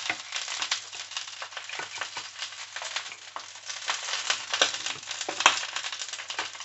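Boiled sambal ingredients being crushed by hand with a pestle in a mortar: irregular taps, crunches and scrapes, with a sharper knock about five and a half seconds in.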